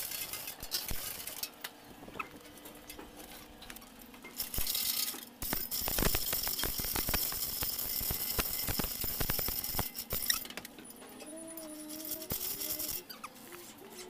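Hand chain hoist being worked under a suspended truck gearbox: the chain rattles and clicks quickly through the hoist. A louder, hissing, squeaky stretch runs through the middle.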